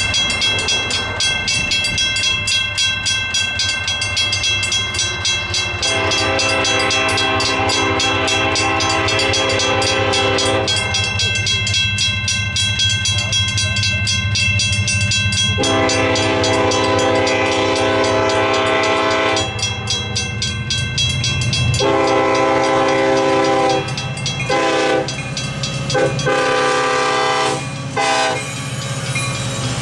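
Mechanical railroad crossing bell ringing with fast, even strokes. An approaching Union Pacific freight locomotive blows its air horn over it: two long blasts, then a slightly shorter one and a run of short blasts as the train reaches the crossing, with the rumble of the train rising near the end.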